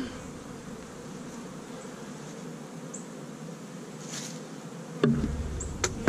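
Many honey bees buzzing steadily around an opened hive, stirred up and defensive. About five seconds in, a low rumble and a few knocks join in as the hive box is handled.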